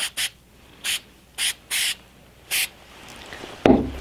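Aerosol can of gun oil sprayed onto a rifle bolt in six short, separate spritzes, lubricating a dry, sticky factory-new bolt. A louder thump comes near the end.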